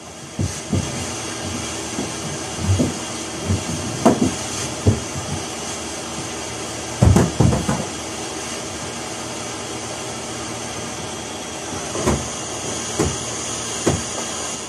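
Canister vacuum cleaner running with a steady hiss. Scattered knocks and thumps break in, with a cluster of them about halfway through.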